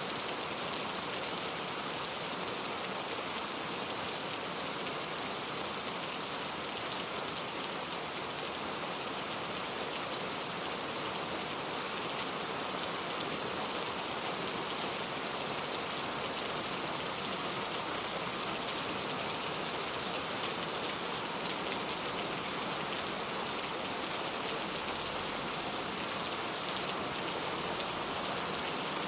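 Steady rain falling, an even hiss with scattered drop ticks throughout.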